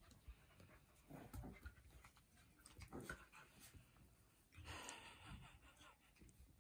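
A Havanese puppy and a Maltese play-fighting, heard faintly as huffing breaths and small scuffles, with a longer breathy hiss about five seconds in.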